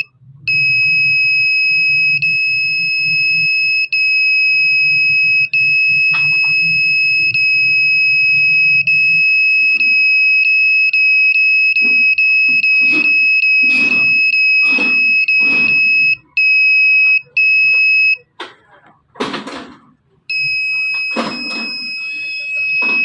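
Electronic buzzer in a homemade transistor buzzer circuit sounding one steady, loud, high-pitched tone, broken by brief dropouts that come quicker in the middle. It stops for about two seconds near the end, then sounds again.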